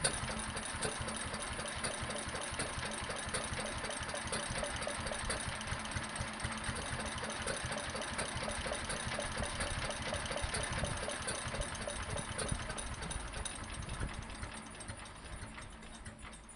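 Fowler 1PA stationary engine running with a rapid, even knocking beat and a faint steady hum, dying away over the last couple of seconds.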